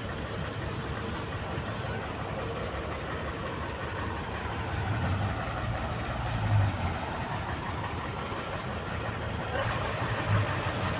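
Steady low rumble and hiss of background noise, with a few brief swells in loudness.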